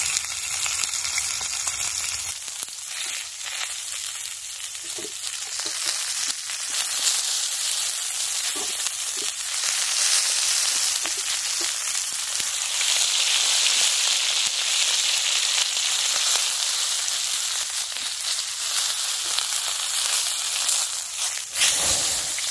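Steak searing in oil in a wrought iron skillet: a steady, high sizzle that grows louder about halfway through. Just before the end, as the steak is turned, a brief low burst as the pan flares up into flame.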